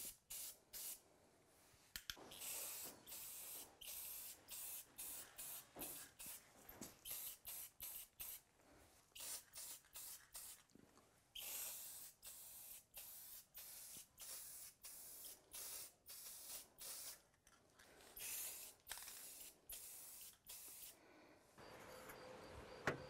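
Aerosol spray paint can spraying in many short bursts, each a brief hiss of under a second, repeated one after another as the nozzle is pressed and released.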